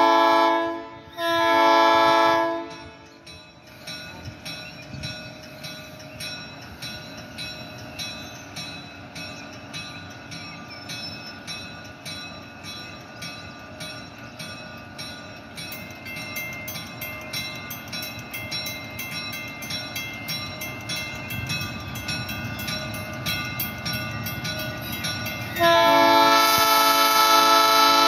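Diesel switcher locomotive's air horn sounding two blasts, a short one and then a longer one, followed by the locomotive rolling slowly in with its engine running and a regular clicking. Near the end the horn sounds again in one long blast.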